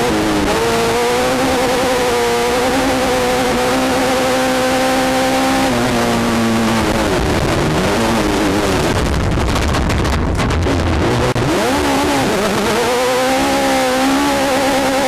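Class 10 off-road race car engine heard from inside the car, running at high revs with wind and chassis noise. The revs hold steady, fall away about six seconds in into a rougher low rumble, then climb again near eleven seconds and hold.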